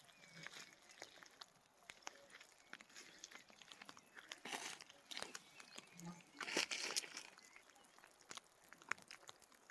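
Faint footsteps through wet pasture grass: scattered crunching and swishing steps, with two louder rustling steps about four and a half and six and a half seconds in.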